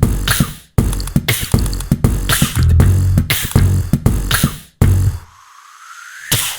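Beatbox-style beat of sharp percussive mouth sounds over a deep pulsing bass. About five seconds in it drops out, leaving a single tone that glides upward.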